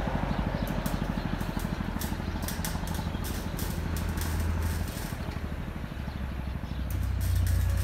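An engine running with a fast, even pulsing beat, with scattered light clicks over it; it grows louder about seven seconds in.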